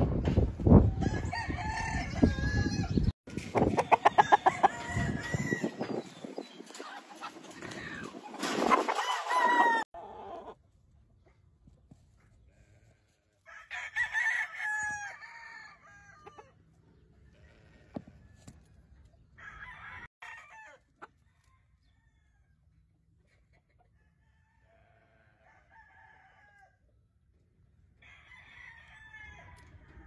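Gamefowl roosters crowing, with clucking: loud and almost continuous for the first ten seconds, then several separate, fainter crows a few seconds apart.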